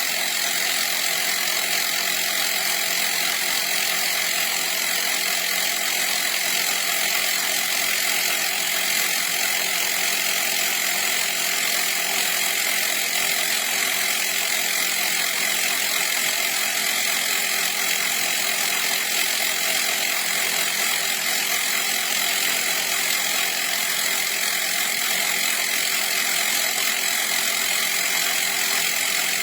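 CYCPLUS 150 PSI battery-powered mini air compressor running, its small motor-driven piston pump going steadily at an unchanging pitch.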